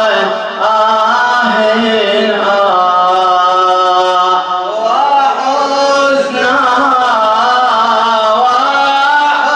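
A male radood chanting an Arabic elegy (latmiya) in long, drawn-out melismatic notes, the voice bending slowly from pitch to pitch.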